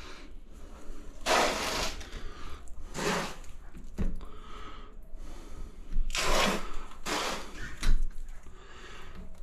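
Plastic cross tile spacers being pushed by hand into the joints of freshly laid subway tiles: several short scuffing, sliding noises of fingers and plastic against the tile faces, and a couple of light clicks.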